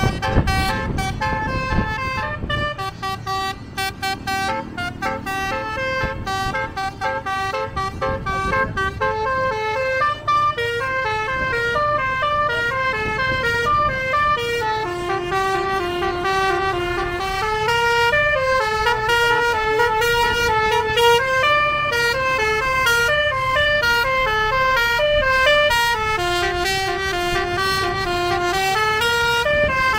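A tour bus's basuri horn, a set of air-horn trumpets, plays a continuous melody, note after note stepping up and down. Engine and road rumble sits under it and is heaviest in the first two seconds or so.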